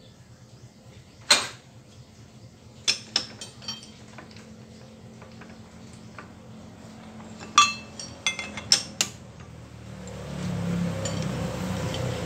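Sharp metal clinks and knocks of a T-handle chuck key working the jaw screws of a lathe's four-jaw chuck while a brake rotor is clamped in it: a handful of irregular clinks, the loudest about a second and a half in and at about seven and a half seconds. A low hum swells in near the end.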